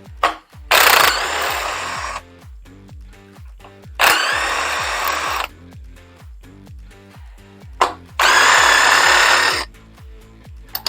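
Handheld power tool running in three bursts of about a second and a half each, its motor whining up to speed at the start of each, as bolts are run out during an engine teardown.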